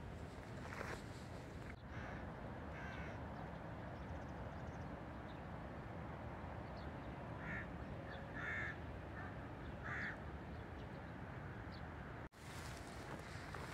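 Crows cawing: a few faint caws, then three louder harsh caws about a second apart, over a steady outdoor background noise.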